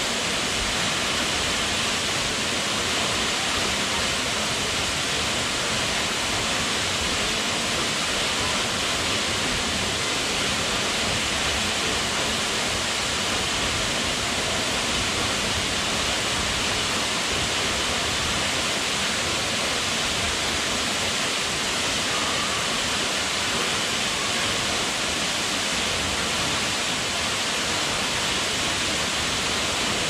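A tall waterfall falling into its plunge pool: a steady, unbroken rush of falling water.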